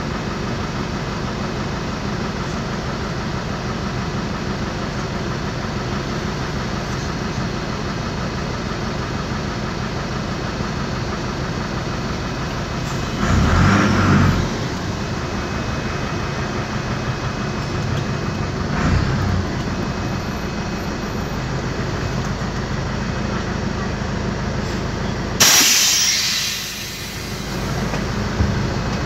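Otokar M-2000 bus's air-cooled Deutz diesel idling steadily, heard from inside the bus. It swells briefly louder about halfway through. Near the end there is a sudden loud hiss that dies away over about a second.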